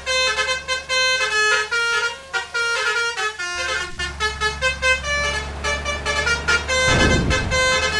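Basuri 'telolet' melodic horns on convoy vehicles playing fast tunes of short stepped notes, several horns overlapping. A steady low engine hum sits underneath, with a brief low rumble about seven seconds in.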